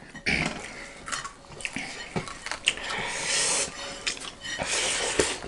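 Scattered light clicks and clinks of plates and cutlery during a meal, with a few soft rustling noises in between.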